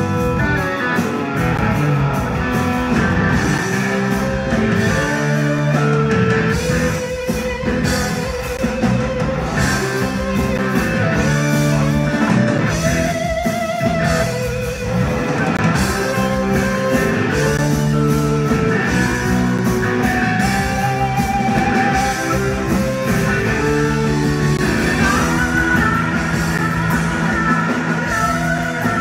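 Live rock band playing: two electric guitars, one a Flying V-style guitar, over drums, with long wavering held notes in the lead line.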